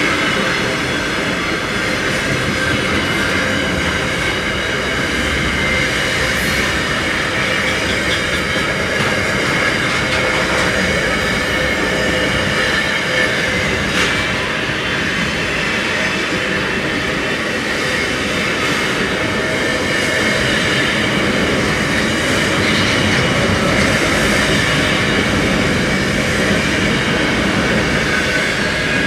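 Wagons of a long freight train rolling past close by: steady wheel and rail noise with a thin high squeal from the wheels running under it, and a sharp click about halfway through.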